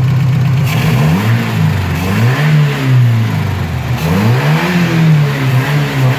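Opel GT four-cylinder engine, fuel-injected by a Holley Sniper EFI whose ECU controls the ignition timing, blipped from idle several times, its pitch rising and falling with each rev before settling back toward idle. It picks up cleanly, which the owner judges as sounding pretty good with good acceleration.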